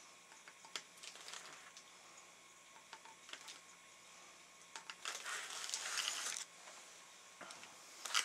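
Faint workbench handling noise: scattered small clicks and taps, then about five seconds in a second and a half of tissue paper crinkling and rustling as the fish mount is handled.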